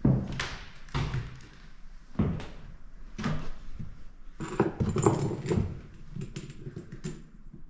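Irregular indoor thuds and knocks, roughly one a second, with a busier run of knocking and clatter about five seconds in.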